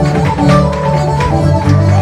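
Live Irish traditional band playing a tune, with plucked strings and fiddle over a steady beat struck about twice a second.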